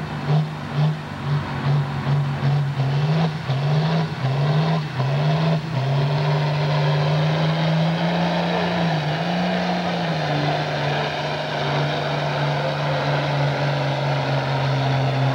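John Deere diesel tractor engine running hard under heavy load while pulling the weight sled. For the first six seconds the engine note wavers quickly up and down, then it settles into a steady pull with a brief rise and fall near the middle.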